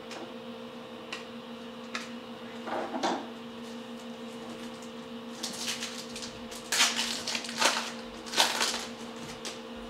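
Glossy trading cards being handled, with a few light clicks and then several short rustling, sliding scrapes as the cards are shuffled through, over a steady hum.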